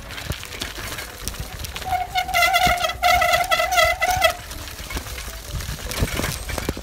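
Bicycle brake squealing for about two seconds from around two seconds in: a high, wavering tone with a short break in the middle. A rough low rumble of tyres on a dirt trail and wind on the microphone runs under it.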